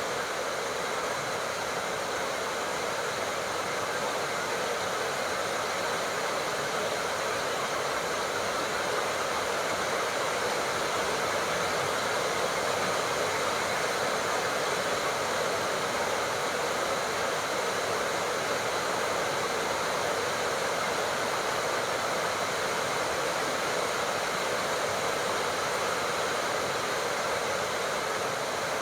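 Steady, even rainfall: a constant hiss of heavy rain with no distinct drops, thunder or other events.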